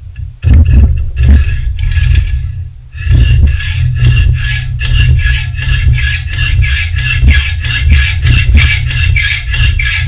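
Hacksaw cutting a slot into a small metal keeper clamped in a vise: a few short starting strokes, a brief pause, then steady rasping back-and-forth strokes about three a second.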